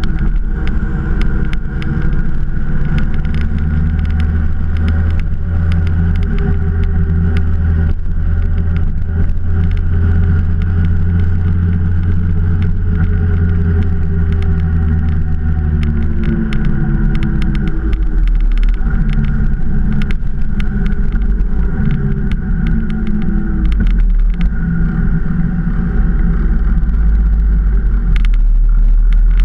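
Motorcycle engine running steadily while riding, heard close up, with a deep, continuous note that shifts in pitch a couple of times, lower after about halfway through.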